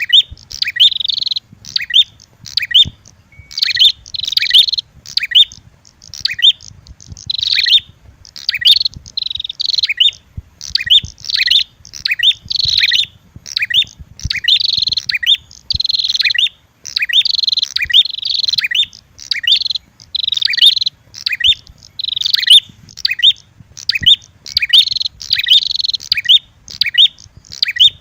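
Bird-lure recording of prenjak (prinia) calls: a red-headed prenjak's calls mixed with agitated female prenjak fighting calls. The rapid, high-pitched chip notes come in dense bursts, one after another, with only short gaps.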